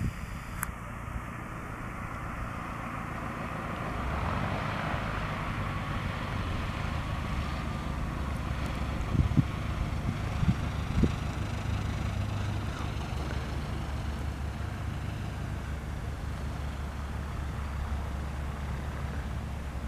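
Light aircraft's engine and propeller running at low power as the 1981 Cessna 172P Skyhawk rolls out along the runway after landing, getting louder about four seconds in. A few short thumps about nine to eleven seconds in.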